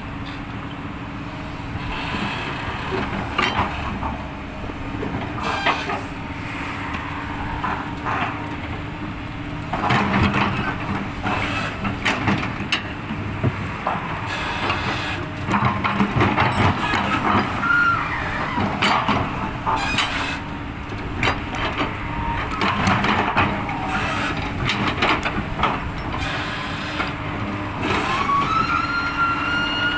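Excavator at work: its diesel engine runs steadily under repeated knocks and clanks from the bucket and tracks, with a few brief high metallic squeals near the middle and end.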